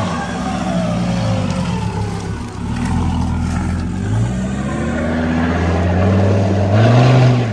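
Off-road 4x4 engine revving up and down under load, its pitch climbing and dropping several times, with a rough rushing noise underneath.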